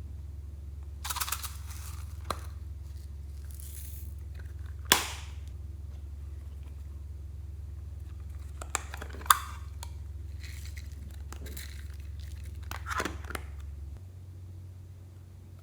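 Clear slime being handled and pressed by hand, giving scattered crackles and sharp pops at irregular intervals, the loudest about five and nine seconds in, over a steady low hum.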